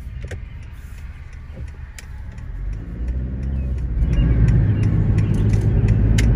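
Car driving, heard from inside the cabin. The engine and road rumble swell and rise in pitch from about halfway through as the car speeds up. Scattered sharp crackles run through it, from fish flies crunching under the tyres on a bug-covered road.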